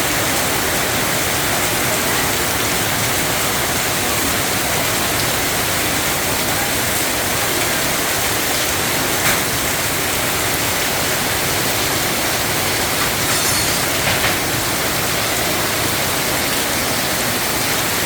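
Heavy rain pouring down in a steady, dense hiss, with a few faint ticks from drops striking something hard.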